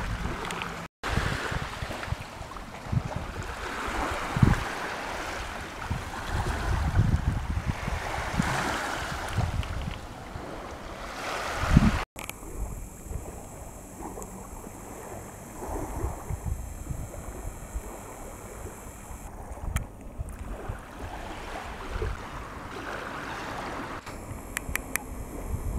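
Wind buffeting the microphone in uneven gusts over the wash of lake water at the shore. The sound cuts out briefly twice where shots are spliced together.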